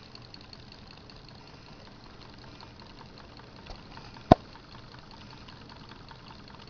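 A tea-light-heated Stirling engine coupled to a Muller dynamo wheel, both running: a faint, steady mechanical whirr with light ticking. A single sharp click about four seconds in.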